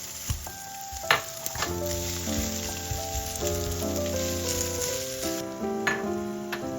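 Food sizzling in a hot frying pan, with a few sharp clicks of a utensil against the pan, over background music.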